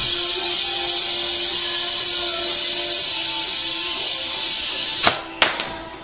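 Compressed air hissing steadily through a brass air chuck pressed onto a tyre valve, inflating the tyre from a homemade compressor's hose. About five seconds in the hiss cuts off with two sharp clicks as the chuck comes off the valve.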